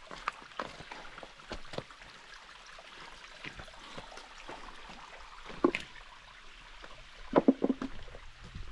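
Irregular footsteps and scrapes on rock, with a louder knock a little past halfway and a quick cluster of knocks near the end, over a faint stream.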